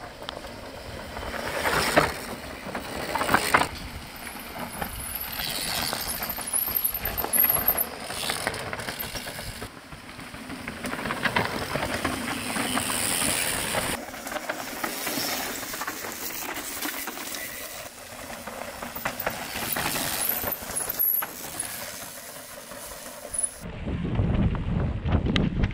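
Mountain bikes passing on a dirt and gravel trail: tyres crunching over loose stones, with sharp clicks and rattles from the bikes. The sound changes abruptly several times.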